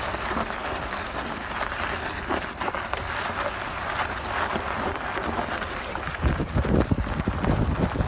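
Tyres of a 2017 Chevrolet Colorado Z71 pickup rolling slowly over gravel, a steady crunching with many small stone clicks. About six seconds in, wind starts buffeting the microphone in uneven low rumbles.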